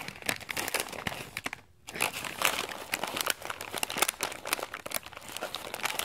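Plastic bag of small parts crinkling and rustling as hands rummage through it, with a short pause a little before two seconds in.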